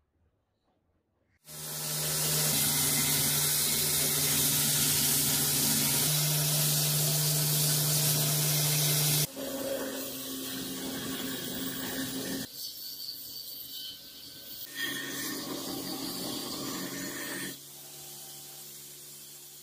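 Belt grinder running, its motor humming steadily under a loud hiss as a forged iron axe blade is ground against the abrasive belt. The sound changes abruptly twice, first to a rougher, uneven grinding noise and then to the grinder running more quietly on its own.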